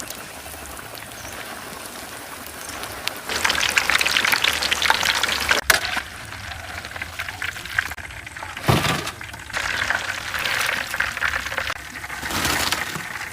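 Chicken frying in hot oil, a steady sizzling crackle that swells louder twice. A sharp click comes about halfway through, then a dull thump.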